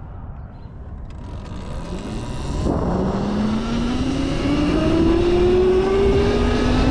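Electric bike motor whining, rising steadily in pitch as it accelerates from about three seconds in, over a low rumble of wind noise that grows louder with speed.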